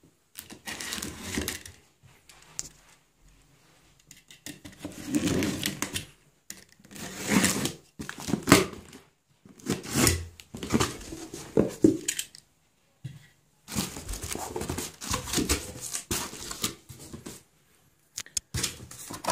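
A cardboard box being cut open and unpacked: a utility knife slitting the packing tape, then the cardboard flaps pulled open and handled, in irregular bursts of scraping and rustling with short pauses between.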